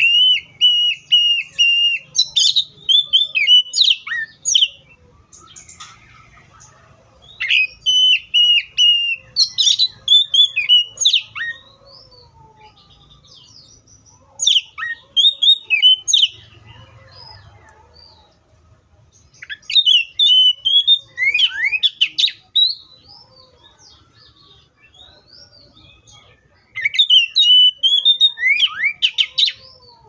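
Oriental magpie-robin singing in five bouts of a few seconds each, with short pauses between: loud whistled phrases of quick repeated notes and sharp down-sweeping whistles.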